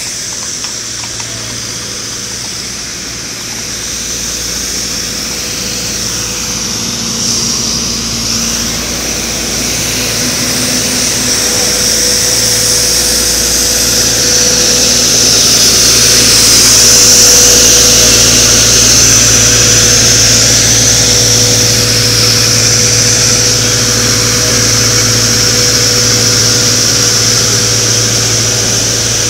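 Heavy vehicle engine running steadily with a strong high hiss or whine over it, slowly growing louder until about halfway through, then easing off a little as it passes along the road.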